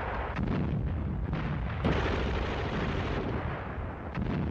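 Battle sounds of artillery fire and explosions: a continuous heavy rumble with sharp cracks, the loudest nearly two seconds in and a few more near the end.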